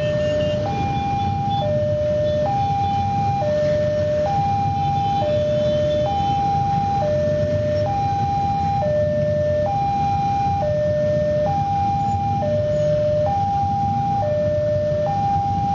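Railway level-crossing warning alarm sounding its two-tone signal, a higher and a lower note alternating about once a second. Under it, the low steady rumble of many motorcycles idling at the closed crossing.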